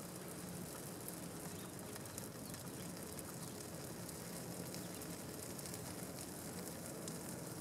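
Small fire of dry leaves crackling faintly in a clay chiminea, with fine scattered crackles over a steady low background hum.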